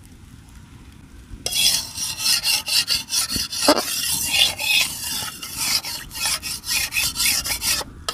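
Metal spatula scraping and rubbing around the inside of a metal kadai in many quick strokes, spreading a thin coat of oil over the pan; it starts about a second and a half in.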